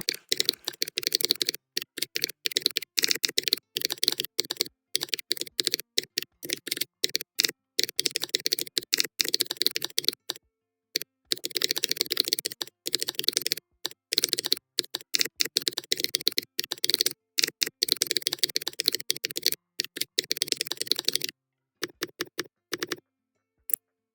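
Fast typing on a keyboard: rapid runs of sharp key clicks, broken by a few short pauses, thinning out to a handful of scattered keystrokes about 22 seconds in. The clicks demonstrate a mechanical-keyboard typing sound.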